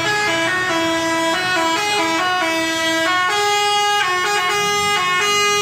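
Bus telolet horn of the Basuri type playing a melody: a run of short and held notes sounding several tones together, the chords changing every fraction of a second.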